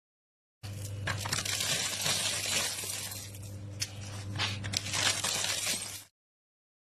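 Corn sheller stripping kernels from an ear of maize: a continuous scraping noise dotted with sharp clicks over a steady low hum. It starts about half a second in and cuts off suddenly near the end.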